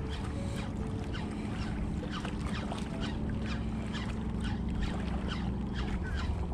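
Small waves lapping and slapping against shoreline rocks in quick, irregular splashes, over a steady low hum.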